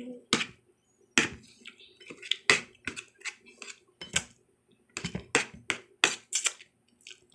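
Eating sounds: a string of short, sharp clicks and clinks at irregular intervals, with brief quiet gaps between them.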